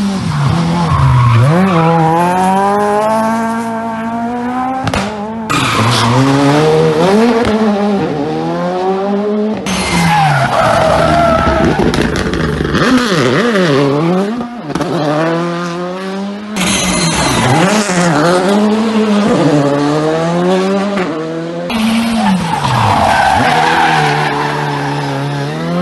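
Rally cars taken one at a time through a tight tarmac hairpin, their engines revving hard, dropping and rising again through gear changes, with tyre squeal as they slide round the corner. The sound cuts sharply from one car to the next four times.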